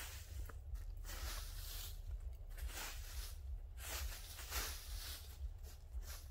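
Footsteps crunching through dry fallen leaves, a step about every second.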